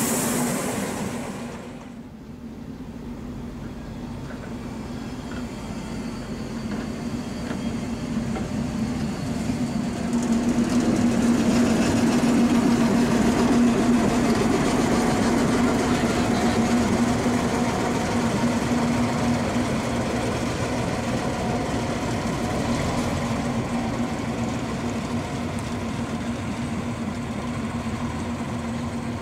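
MaK 450C diesel shunting locomotive running with a steady low engine drone as it hauls a passenger coach past. The drone builds to its loudest about halfway through, then slowly fades.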